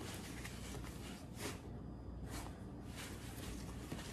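Faint rustling and soft swishes of hands working shoelaces while a sneaker is tied, over a low steady room hum.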